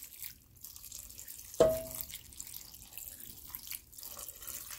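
Water pouring from a stainless steel bowl onto chopped jackfruit in a cooking pot, a steady splashing trickle, with a single short clink about a second and a half in.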